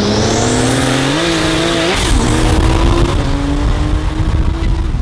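Twin-turbo Lamborghini Huracán V10 and a tuned turbo Porsche 911 cabriolet accelerating hard side by side, heard from inside the Lamborghini. Engine pitch climbs, drops at an upshift about two seconds in, then climbs again under rising wind and road noise. A thin high whine rises over the first second.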